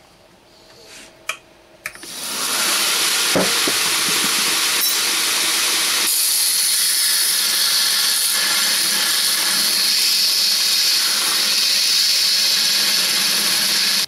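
Belt grinder starting up about two seconds in and then running with a steady, loud high-pitched hiss as a metal pocket clip blank is ground to its paper template against the platen. The sound cuts off suddenly at the end.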